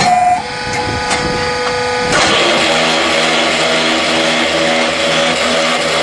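Mobile concrete block-making machine running. About two seconds in its sound turns denser and louder, a steady hum under a rattling noise.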